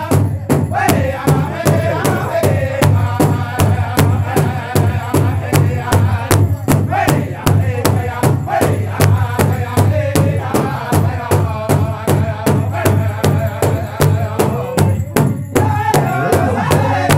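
Powwow drum group: several singers beating a large hide-covered drum together in a steady, even beat, with group singing over it. The singing breaks off briefly near the end and then resumes.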